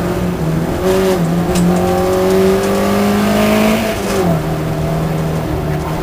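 Sprint car's engine heard from inside the cabin, revs climbing steadily for a couple of seconds under acceleration, then dropping sharply about four seconds in.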